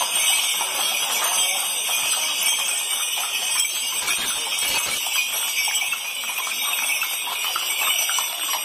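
Several horses walking on a paved street, their hooves clip-clopping, with steady jingling from their harness.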